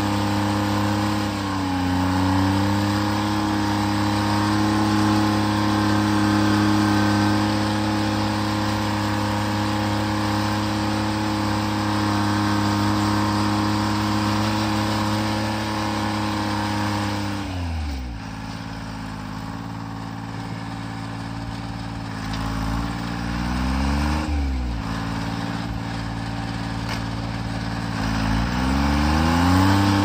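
Timberjack 230 skidder's Detroit Diesel engine running under steady high throttle. A little over halfway through it drops back to a lower speed, with a brief rev about three-quarters of the way in and the revs climbing again near the end.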